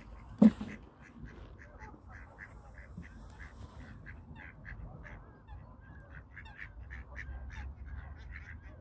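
A duck gives one loud quack about half a second in. After it come faint, short, high ticks repeating about three times a second, over a low, steady background.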